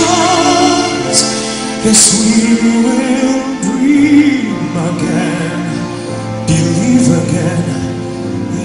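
Live performance of a ballad: a male singer sings with vibrato over sustained instrumental backing.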